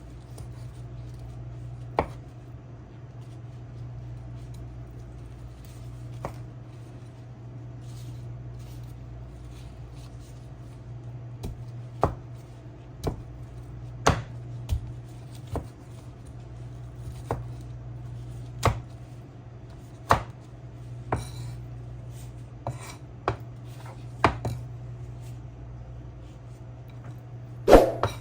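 A knife chopping on a cutting board in scattered single strokes, sparse at first, then about one a second, with a louder clatter near the end. A steady low hum runs underneath.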